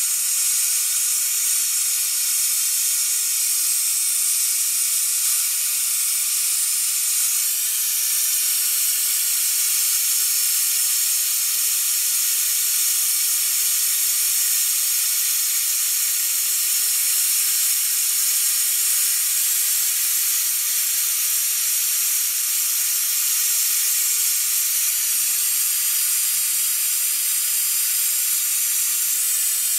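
Harbor Freight air-powered brake fluid evacuator, run off an air compressor, hissing steadily while it draws brake fluid out of a truck's master cylinder reservoir.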